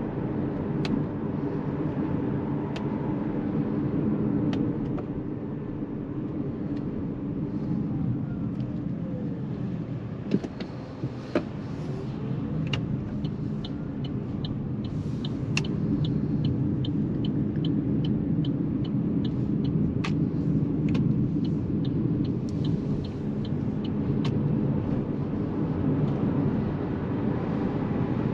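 Tyre and road noise inside the cabin of an Opel Mokka-e electric car on the move, with a faint motor whine that falls and then rises again as the car slows and picks up speed. In the middle, the turn indicator ticks steadily for several seconds, and it ticks again briefly later on.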